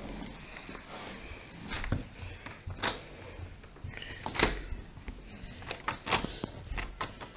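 A uPVC patio door being handled by its lever handle: a few separate sharp clicks and knocks from the handle, latch and frame, the loudest about four and a half seconds in.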